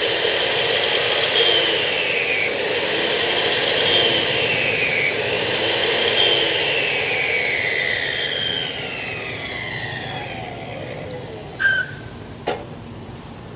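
Dekton DK355 355 mm metal cut-off saw's electric motor and blade running free with no cut, its whine swelling and sagging three times. After about eight seconds it winds down steadily as the blade coasts toward a stop, with two light knocks near the end.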